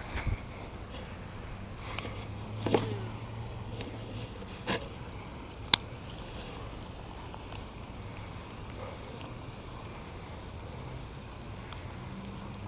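Steady outdoor background noise with a few short clicks and knocks from handling a baitcasting rod and reel, the loudest a sharp snap about six seconds in.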